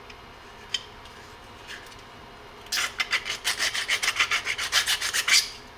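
A needle file rasping in rapid short back-and-forth strokes, several a second, across a 3D-printed plastic airsoft lower receiver. A single click comes about a second before the filing starts a little before halfway in.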